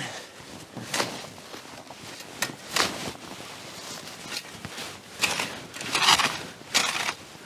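Snow being dug out by hand with a shovel: irregular crunching scrapes, one every second or so.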